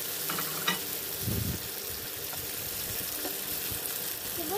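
Chopped tomatoes, onions and garlic sizzling in oil in a non-stick frying pan as they are stirred with a spatula. A brief clatter about half a second in and a low thump just over a second in.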